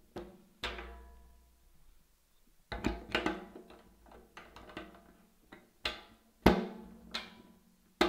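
Hollow knocks and clunks as the filler cap on an empty, black-anodized Aeroflow aluminium fuel cell is worked by hand. The tank rings briefly after each knock. The knocks come at uneven intervals, and the sharpest is about six and a half seconds in.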